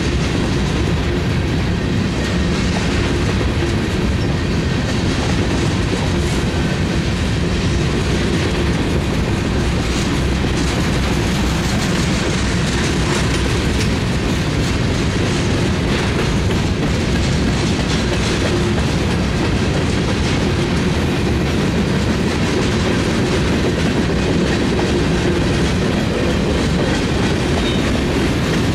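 Freight train covered hopper cars rolling past close by: a steady rumble of steel wheels on the rails with clicking over the rail joints.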